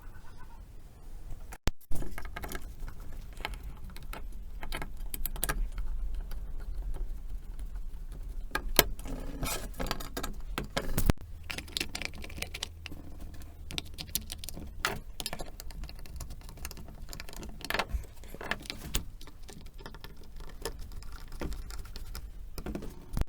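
Small metal parts and tools clinking and tapping during bench work: a run of light clicks and knocks with a faint jingle, over a low steady hum.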